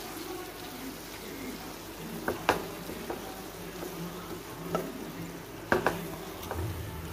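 Prawns sizzling in a kadai of fried onion and tomato masala, stirred with a spatula that knocks and scrapes against the pan a few times.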